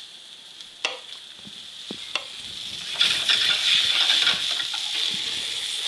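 A kitchen knife knocks a few times on a wooden cutting board while halving black olives, over a faint sizzle. About three seconds in, the sizzle of two cod fillets sautéing in olive oil in a skillet comes up loud and steady.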